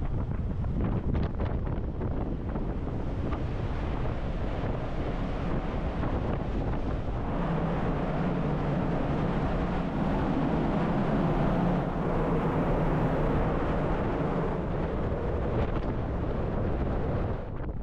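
Wind buffeting the microphone on the open deck of a car ferry underway at sea, over a steady rush of wake and ship noise. The wind eases just before the end.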